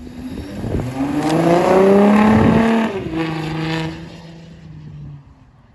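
Sports car engine accelerating hard away, revs climbing, dropping at an upshift about three seconds in, then climbing again and fading into the distance.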